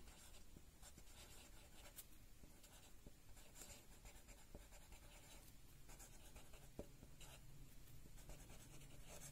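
Faint scratching of a pen writing by hand on paper, in short irregular strokes.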